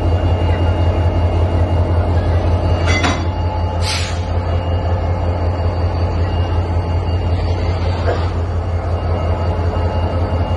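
Diesel locomotive engine idling close by with a steady low throb. A sharp click sounds about three seconds in, followed a second later by a short hiss.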